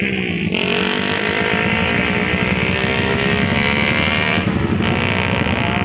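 Honda GL and Honda Tiger drag-race motorcycle engines revving at the start line, held at high revs with the pitch sliding up and then wavering.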